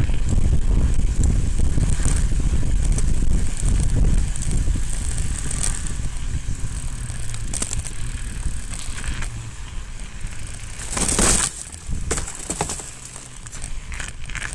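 Mountain bike riding over snow, heard from a camera mounted on the bike: a low rumble that eases off partway through, with crunches and rattles, the loudest about eleven seconds in.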